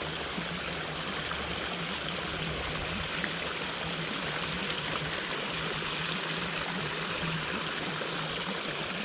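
Small creek running steadily, an even rush of flowing water, with a faint steady low hum underneath.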